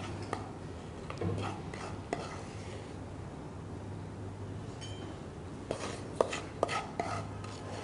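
A spatula scraping roasted semolina out of a non-stick frying pan into a bowl. Near the end come a few sharp taps of the utensil against the pan.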